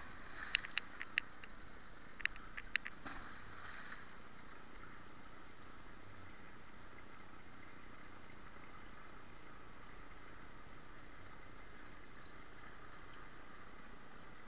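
Steady hum of road traffic, with a few short sharp clicks in the first three seconds.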